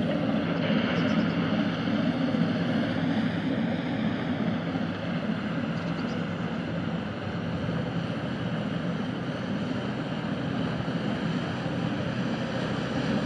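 Diesel engine of a passing inland container barge, a steady low drone that eases off slightly after about five seconds as the vessel moves past.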